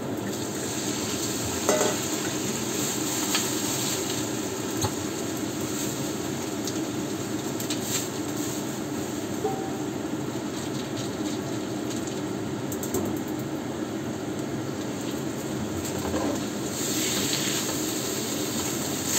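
Chicken and meat pieces sizzling as they fry in a hot nonstick wok over a gas burner, with a spatula stirring and scraping them now and then.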